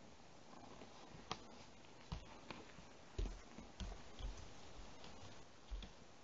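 Soft low thuds of bare feet stepping on a wooden floor close by, starting about three seconds in, after a couple of faint clicks.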